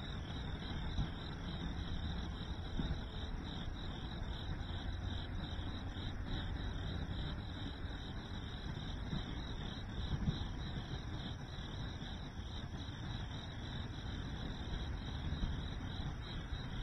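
A chorus of crickets chirping steadily in a rhythmic, pulsing trill, over a continuous low rumble.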